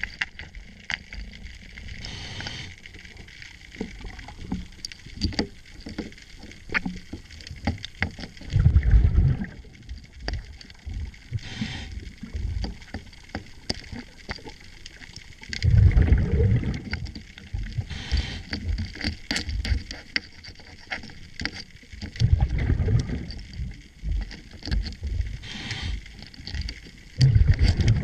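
Scuba diver's regulator breathing underwater: a short hiss on each inhale and a loud low bubbling rush on each exhale, about every seven seconds. Scattered sharp clicks and taps come from handling a collar zinc anode being fitted around the propeller shaft.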